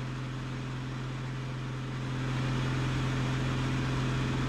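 Cockpit noise of a Van's RV-14 single-engine light aircraft in flight: the steady drone of its piston engine and propeller over a hiss of airflow. It gets louder about two seconds in.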